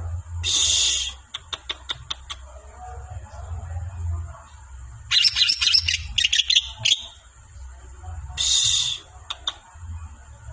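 A songbird giving loud, harsh bursts of calls three times, with quick sharp clicking notes between the bursts. A steady high thin whine runs underneath.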